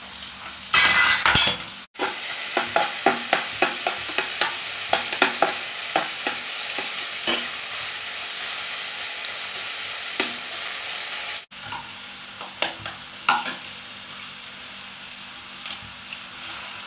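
Chopped onions sizzling as they fry in oil in a pan. The sizzle is loudest just after they go into the hot oil. A metal spatula scrapes and knocks against the pan about three times a second as they are stirred, and the knocks become sparse in the second half.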